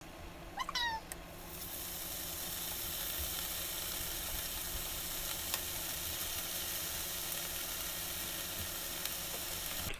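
Beef sizzling steadily in a hot pan, a dense even hiss that starts about a second and a half in and cuts off suddenly at the end. A brief high squeak sliding in pitch comes just before the sizzle starts.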